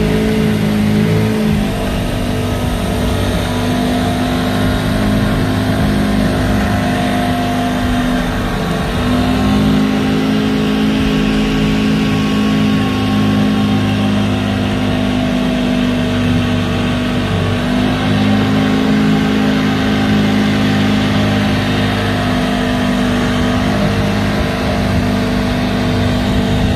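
Boat's outboard motor running steadily under way, its pitch shifting slightly up and down a few times.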